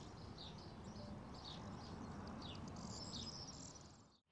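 Small birds chirping faintly, short downward-sliding chirps about twice a second over faint open-air background noise, fading out just before the end.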